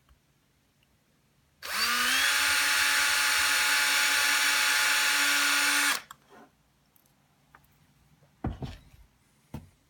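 Electric drill spinning up and running at a steady whine for about four seconds as it drills a small hole, then cutting off. A couple of short knocks follow near the end.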